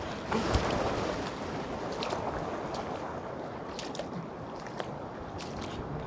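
Sea water washing and sloshing among shore rocks, swelling briefly about half a second in, with a few small clicks scattered through it.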